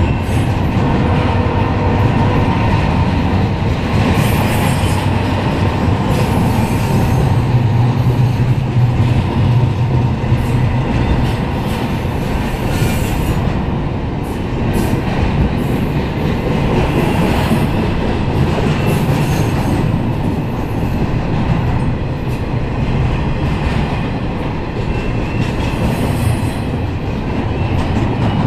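Double-stack intermodal freight train passing close by at speed: a steady, loud rumble of the well cars with irregular clatter from the wheels on the rails.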